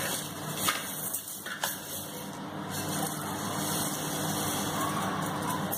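Pouring from a steel tumbler into a steel bowl of rice, with a couple of light knocks of metal vessels early and a steadier pouring hiss in the second half, over a steady low hum.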